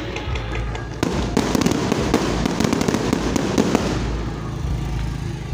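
Aerial fireworks crackling and popping: a dense, rapid run of sharp cracks starts about a second in and eases off about four seconds in, over a steady low rumble.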